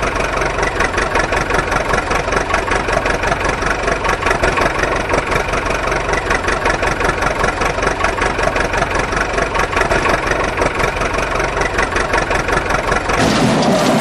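Engine running at a steady idle, a fast even chugging, most likely a dubbed engine sound effect rather than the toy itself. About a second before the end it changes to a louder, rougher rush.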